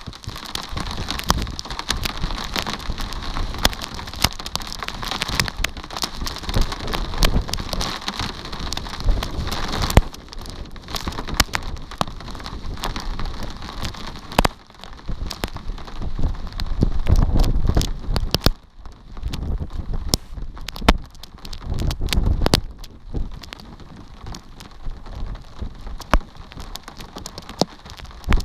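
Rain falling, with many separate drops clicking close to the microphone over a steady hiss. It is heaviest for the first ten seconds or so, then lighter, with a couple of low rumbles in the middle.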